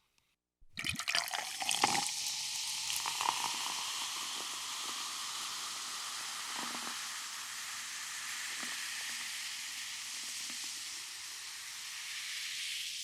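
Soda poured into a glass: a splashing pour for the first second or so, then a steady high carbonated fizz that fades out near the end.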